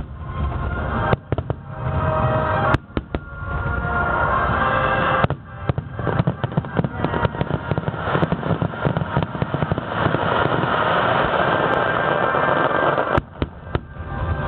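Aerial fireworks bursting: a few sharp single bangs, then from about five seconds in a dense, continuous crackle of many small bursts lasting several seconds, ending with another bang. Music plays underneath, plainest in the first seconds.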